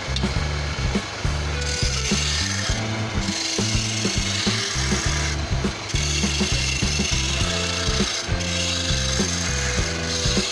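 A wood-turning lathe with a chisel cutting into a spinning wooden pillar, making a scraping, rasping sound in long passes of a second or two with short breaks between them, over background music.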